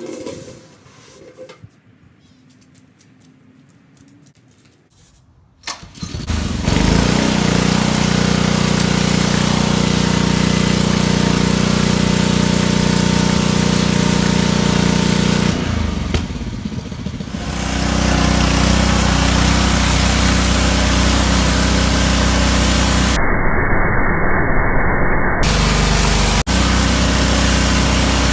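Small gasoline engine starting about six seconds in and then running steadily at high speed, dipping briefly about halfway through.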